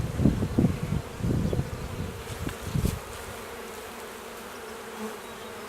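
Honey bees buzzing around an open hive during a frame inspection: a steady, even hum from the colony. Low rumbling bumps sit under the buzzing for the first three seconds, then stop.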